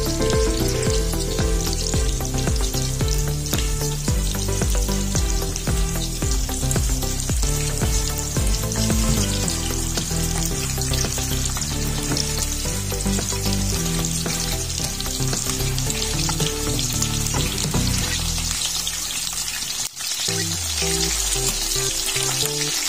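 Breaded shrimp nuggets sizzling as they fry in hot oil in a pan, a steady crackling hiss, with background music over it. Near the end the music drops out for a moment, then resumes.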